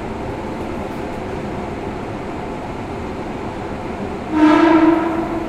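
Osaka Municipal Subway 66 series train running between stations, a steady rumble of wheels and motors heard from on board, with a train horn sounding once for about a second near the end.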